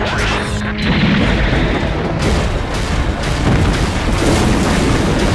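Anime mecha-battle sound effects: heavy booms and explosion rumble, dense and continuous, thickening about a second in, with music underneath.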